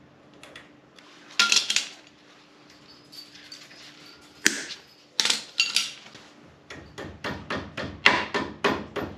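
Steel tools on a truck's tie rod end: a few separate metallic clinks of a wrench on the castle nut, then, from about seven seconds in, a quick, even run of hammer taps on metal, about four a second.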